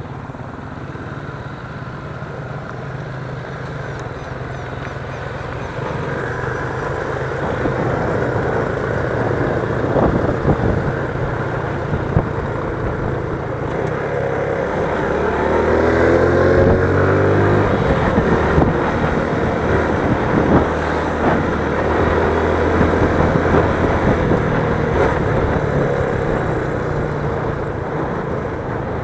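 Motorcycle engine running and revving, growing louder partway through, with a few sharp knocks.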